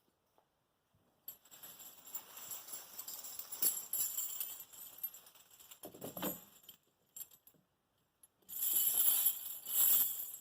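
Heavy steel tire chains clinking and jangling as they are handled and pulled into place over a backhoe's rear tire, in two spells: one from about a second in to about two-thirds through, another near the end.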